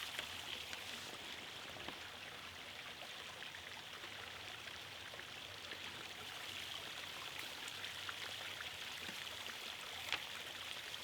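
Steady faint hiss of background noise, with a few soft clicks.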